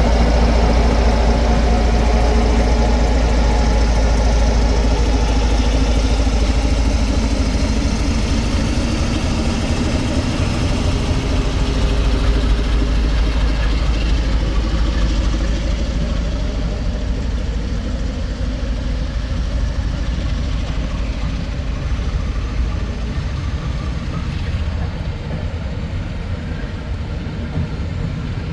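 Diesel train engine running with a deep low rumble. Its pitched engine note is strong at first and fades after about ten seconds, and the overall sound slowly dies down.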